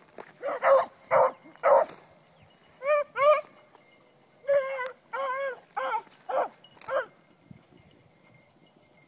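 Beagles baying: a string of short barks that rise and fall in pitch, coming in quick groups and stopping about seven seconds in.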